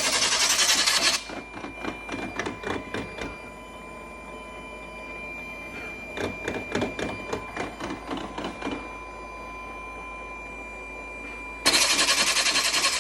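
Rotimatic roti-making machine running with a loud, harsh screech lasting about a second and a half at the start and again near the end, and clusters of mechanical clicking and rattling in between, over a faint steady whine. The screech is the abnormal noise the owner is documenting.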